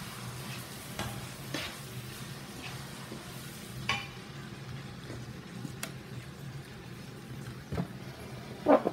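Wooden pestle pounding and working a wet paste of fish and chili in a mortar: soft, irregular mashing with a few sharper knocks, the loudest near the end. A steady low hum runs underneath.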